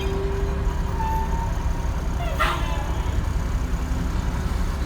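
Diesel engine of a 1995 Kenworth T800 tractor-trailer running steadily on the road, a low rumble heard from the cab. A short sharp sound cuts in about two and a half seconds in.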